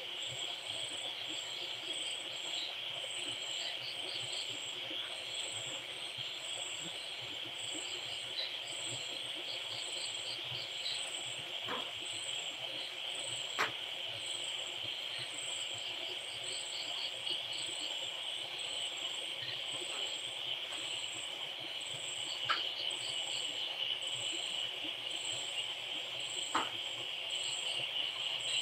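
Steady high-pitched insect chorus with rapid pulsing chirps, broken by a few faint clicks.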